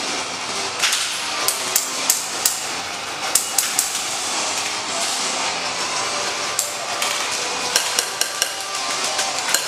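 Airsoft guns firing single shots: sharp snaps at irregular intervals, some in quick clusters of two or three.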